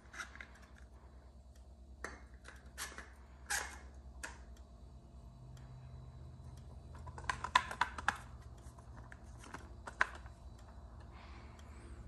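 Faint, irregular clicks and taps over a low steady hum; no alarm tone sounds.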